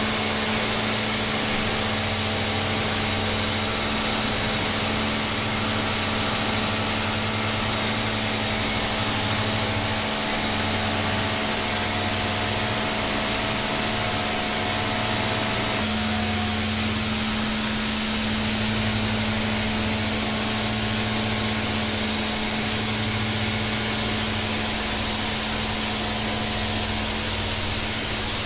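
Tooluck 3,000 psi electric pressure washer running with its trigger held, the water jet making a steady loud hiss over the hum of the electric motor and pump. The hum shifts a little just past halfway.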